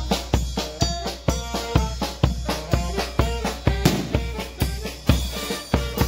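Mexican marching brass band playing: saxophones and trumpets in chords over a steady bass drum beat of about two a second, with snare and cymbals.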